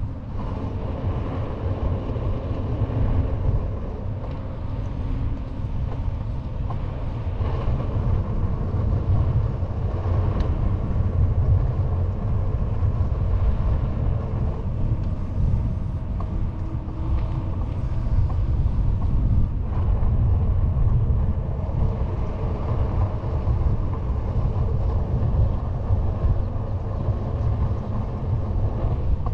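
Steady rush of riding wind on the microphone of a handlebar-mounted camera, over the low rumble of a knobby bicycle tyre rolling on asphalt.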